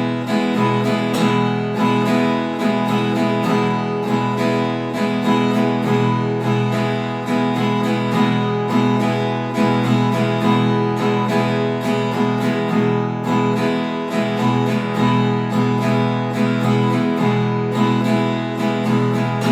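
Acoustic guitar strummed in a steady six-stroke pattern (down, down, up, up, down, up), moving through E major, A major and D major chords.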